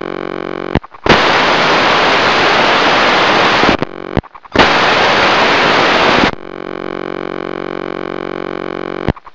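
Audio from a 900 MHz FPV video receiver with the link breaking up: a steady electrical buzz interrupted by two loud bursts of hissing static. The first burst lasts about two and a half seconds and the second nearly two, and each starts and cuts off abruptly, the sign of the video signal dropping out.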